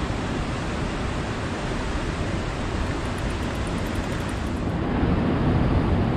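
Sea surf washing on the shore, mixed with wind on the microphone: a steady rushing noise that swells a little about five seconds in.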